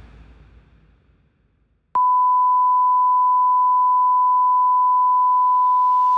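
A fading sound dies away, then about two seconds in a loud, steady electronic beep at one pure pitch starts suddenly and holds without change.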